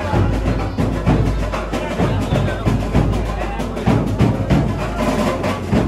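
Procession band music led by heavy, driving drumming with clattering percussion beating a steady rhythm.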